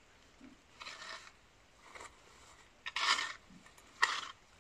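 Metal-tined manure fork raking through straw over concrete: four scraping strokes, the last two loudest.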